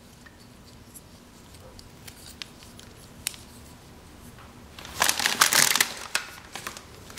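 Plastic packaging crinkling as it is handled. There are a few soft clicks at first, then loud crinkling for about a second and a half starting about five seconds in.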